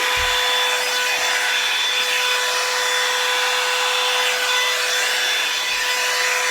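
Hot-air dryer brush running steadily with a constant motor whine, its bristles rubbing through hair.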